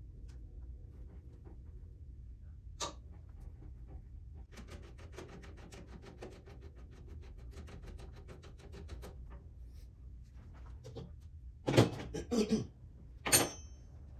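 Hand-tool work on metal car parts: a run of faint, rapid, even clicking for several seconds, then three loud metallic clanks near the end, over a low steady hum.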